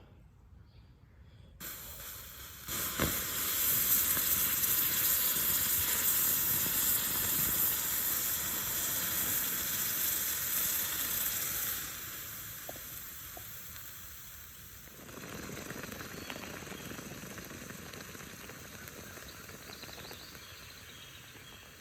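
Molten aluminium poured into a lost-foam sand mould, hissing and sizzling as the buried foam pattern vaporises. The hiss starts a couple of seconds in and is loudest for about ten seconds, then drops, swells again more faintly and dies away.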